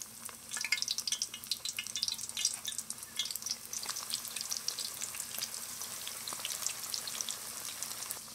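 Chicken pieces deep-frying in hot oil: a dense crackling, popping sizzle that settles into a steadier hiss near the end.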